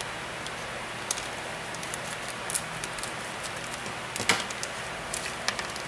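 Scissors snipping open a plastic blind-bag toy packet, with scattered crinkles and clicks over a steady hiss. The sharpest snap comes a little past four seconds in.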